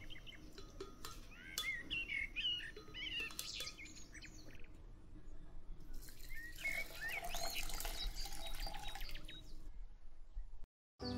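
Birds chirping in short, quick calls; from about six seconds in, lukewarm water is poured from a jug into a glass blender jar of soaked rice, a splashing pour lasting about three seconds. The sound drops out completely for a moment near the end.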